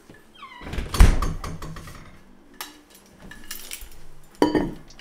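A wooden interior door squeaks on its hinge with a short falling pitch, then shuts with a heavy thud about a second in. Near the end, an insulated steel water bottle is set down on a wooden table with a sharp knock.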